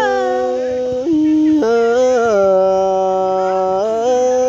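Tai Dam folk singing: a voice holding long notes on a vowel, stepping from one pitch to the next every second or so.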